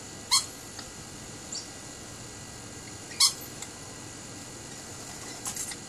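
Rainbow lorikeets giving short, shrill screeches: two loud single calls about three seconds apart, a few softer ones in between, and a quick cluster near the end.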